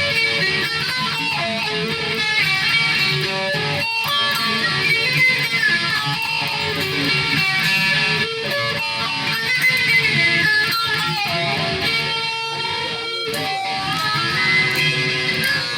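Music with guitar playing throughout, dense and continuous.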